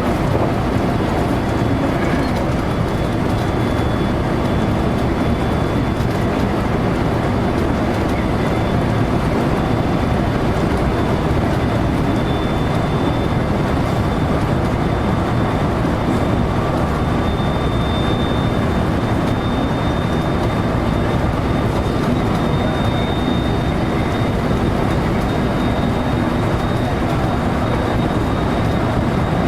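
Electric train running steadily along the line, heard from inside the car: a continuous rumble of wheels on rail with a thin, steady high whine over it.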